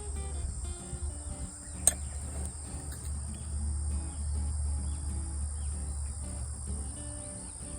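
Steady high drone of insects over a low rumble, with one sharp click about two seconds in.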